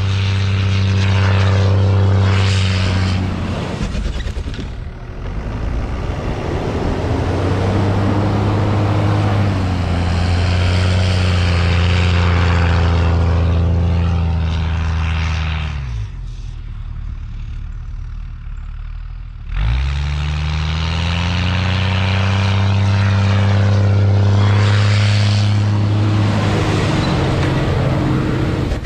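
Ram 2500 plow truck's engine working hard as it pushes through deep snow. About halfway through, the revs drop and the sound falls away, then the engine revs back up, pitch climbing, and runs hard again.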